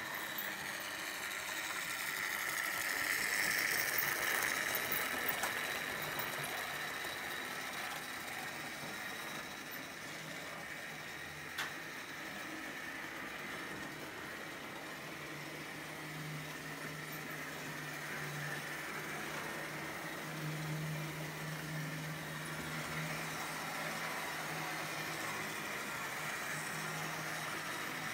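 Analog Märklin H0 model trains running on track: a steady electric-motor whir and wheel rattle that swells a few seconds in as a train passes close, with one sharp click near the middle and a steady low hum through the second half.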